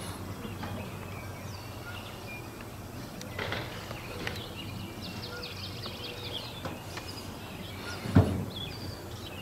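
Outdoor ambience of birds chirping and twittering, with a quick run of twitters about five to six seconds in, over a steady low hum. A single short low thump, the loudest sound, comes about eight seconds in.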